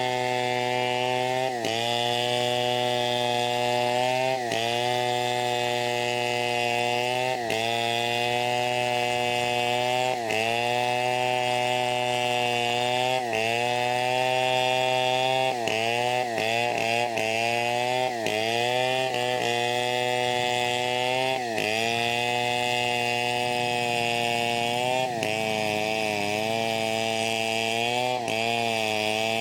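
Two-stroke chainsaw running hard while cutting teak wood, its engine note sagging briefly under load and recovering every few seconds. Several quick dips come in a row about halfway through.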